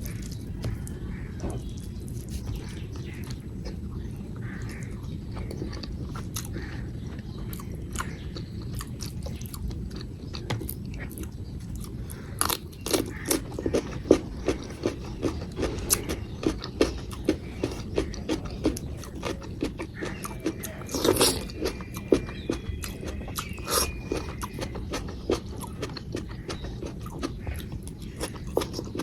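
Close-up eating sounds: wet chewing and lip-smacking over a meal of rice, dal and potato curry, turning into quick, dense mouth clicks and smacks about twelve seconds in. A steady low hum runs underneath.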